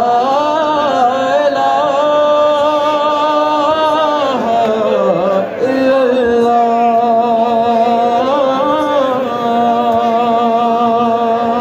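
A man's voice chanting through a loudspeaker system in long, drawn-out held notes. There are two sustained phrases, the second starting about halfway through.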